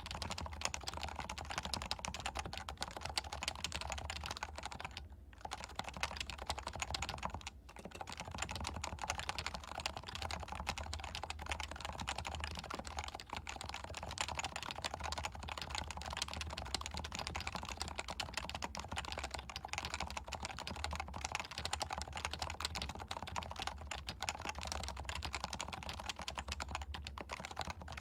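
Leopold FC660C keyboard with non-silenced 45 g Topre electro-capacitive switches in stock form, typed on quickly and continuously, with two brief pauses about five and seven and a half seconds in. Recorded through a Shure MV7 microphone.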